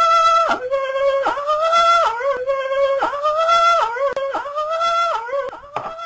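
A high falsetto voice squealing with excitement: a string of shrill held cries, each rising slightly and breaking off about once a second, dying down near the end.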